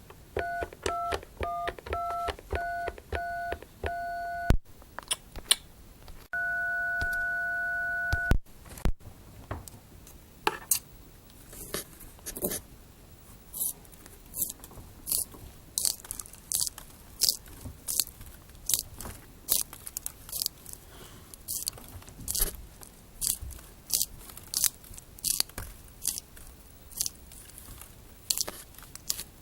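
Touch-tone phone keypad dialing: about eight short two-note beeps, then one tone held for about two seconds. From about ten seconds in comes close-up crunchy chewing, a sharp crunch every second or so.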